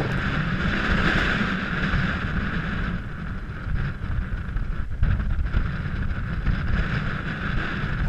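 Wind blowing across the microphone, a steady low rumble with a hiss above it.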